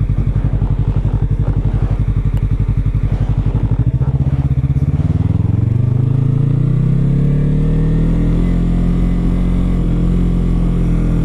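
Yamaha R3's parallel-twin engine running at low revs with an even pulse, then rising in pitch from about four seconds in as the bike accelerates, and holding a steady note near the end.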